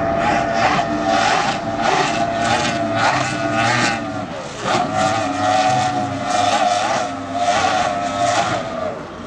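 An engine sound revving in regular surges about twice a second, with a steady wavering pitch, like a race car.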